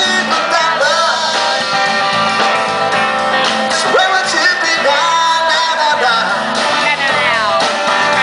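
Small band playing music live, with electric bass guitar and a drum kit under a sliding lead melody line.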